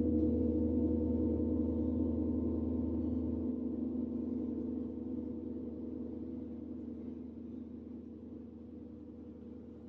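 A large gong ringing out after a single stroke, several steady overlapping tones with a shimmering, slowly fading sustain; its deepest hum drops away about three and a half seconds in.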